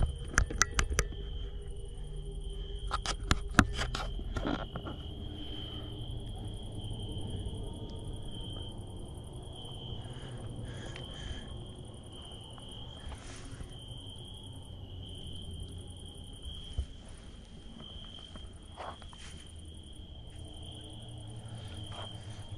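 Crickets chirping in a steady, continuous trill, with a second, higher insect sound above it. A handful of sharp clicks or knocks in the first few seconds are the loudest sounds.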